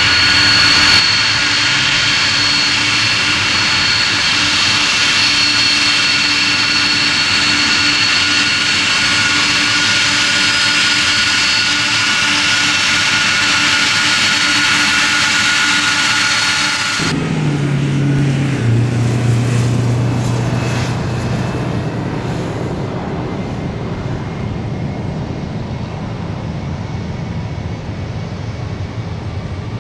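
Boeing 747-400 Pratt & Whitney PW4056 turbofans. First comes a loud, steady fan whine with several held tones as the airliner rolls past close by. About halfway through the sound changes abruptly to the more distant rumble of the engines at takeoff power as the jet lifts off, slowly fading.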